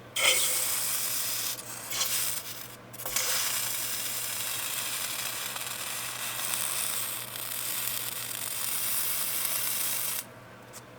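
Blowtorch flame hissing steadily, dipping briefly twice around two and three seconds in and cutting off about a second before the end.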